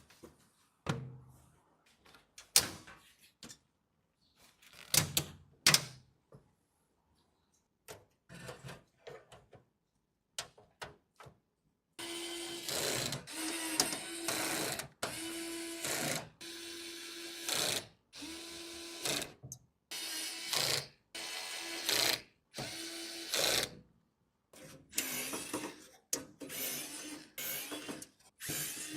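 Computer hardware being handled, with scattered sharp clicks and knocks, then from about halfway a small motorised tool whirring in repeated short bursts of about a second each, with brief pauses between.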